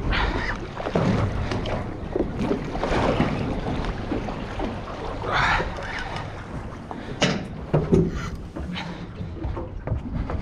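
Wind buffeting the microphone and water slapping against a small boat, with irregular knocks and splashes throughout. The loudest are about halfway through and a few times near the end.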